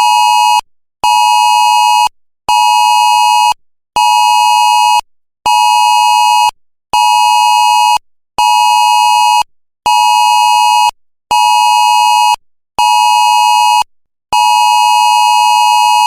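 Emergency alert tone: a loud electronic beep at one steady pitch, repeating about once every one and a half seconds, with a longer held beep starting near the end.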